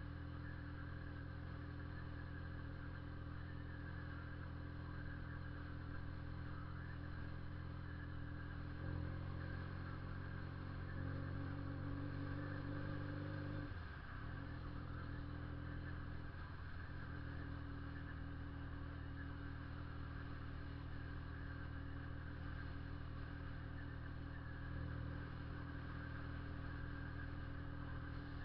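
Honda CB 400 II motorcycle's air-cooled parallel-twin engine running with a steady exhaust note. It rises a little about nine seconds in and again near eleven seconds, then dips briefly near fourteen seconds before settling back.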